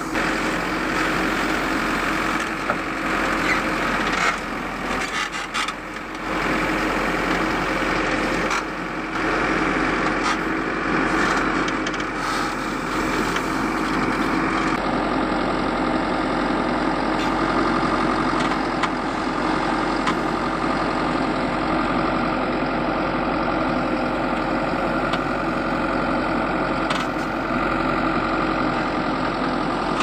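Diesel engine of a Manitou MBL 745 HTS backhoe loader running steadily as the machine works, with a few knocks in the first several seconds.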